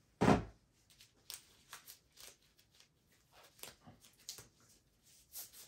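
A single solid thump about a third of a second in, as the just-removed 3.5-inch desktop hard drive is set down on the table. Scattered light clicks and rustles of handling follow.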